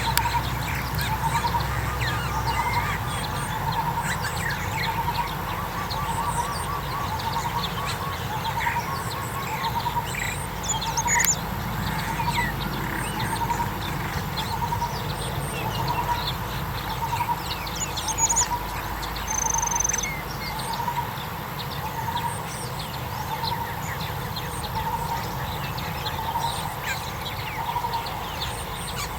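Birds calling: a low note repeated about once a second, with a quick run of the same note near the start, over many short high chirps and whistles.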